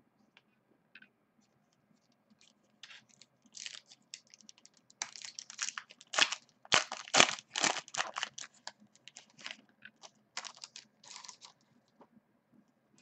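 Foil wrapper of a baseball trading-card pack crinkling and tearing as it is ripped open by hand: a rapid run of crackles that is thickest and loudest in the middle, then thins out.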